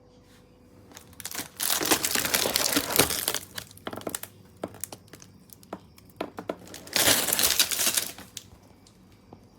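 Packaging being handled and crinkled, in two loud rustling stretches, the second about five seconds after the first, with scattered light clicks and taps between them.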